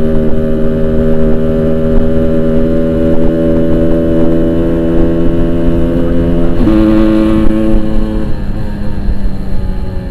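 Yamaha RX-King's single-cylinder two-stroke engine running through a Boban aftermarket exhaust while riding at a steady pace. Its note shifts in pitch about two-thirds of the way in, then eases off near the end.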